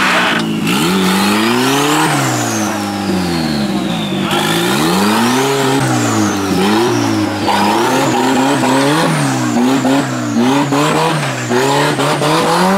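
Off-road competition buggy's engine revving hard, its pitch climbing and dropping over and over as the throttle is worked, with a high whine rising and falling along with it.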